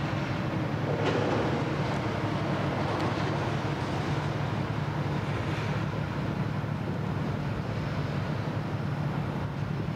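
Steady low drone of marine diesel engines from the tug and crane ship under way, over an even rushing noise of water and wind. The rushing swells briefly about a second in.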